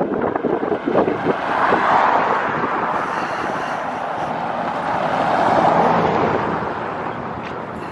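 Street traffic passing, swelling twice as vehicles go by. Wind buffets the microphone at the start.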